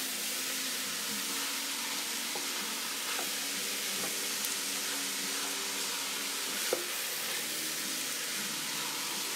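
Shredded cabbage, carrots and other vegetables sizzling steadily as they cook in a stainless steel pot, stirred with a wooden spoon, with a few faint clicks.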